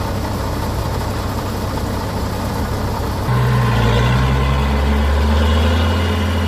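A heavy vehicle's engine running steadily; a little over three seconds in, its note steps up and it runs louder, holding the higher pitch.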